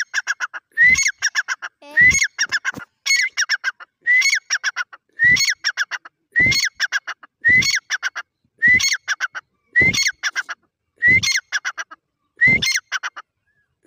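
Grey francolin (dakhni teetar) calling its repeated territorial song. The phrase comes about once a second, twelve times over, each opening with a high rising-and-falling note followed by a quick run of shorter notes.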